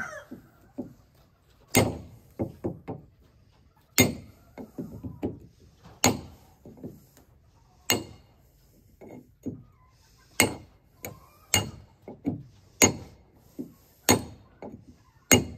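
Ball-peen hammer driving a chisel along a Royalex canoe hull, chipping off the old paint. About nine sharp metal-on-metal hits come roughly every one to two seconds, with lighter taps between them.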